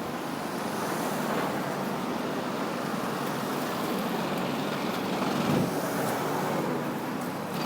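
Steady outdoor street noise with road traffic.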